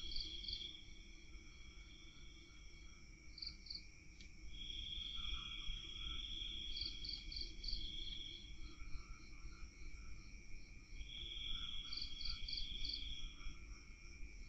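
Crickets and other night insects calling in several overlapping voices: long trills of two or three seconds that come and go, and runs of short chirps at a higher pitch, over a low background rumble.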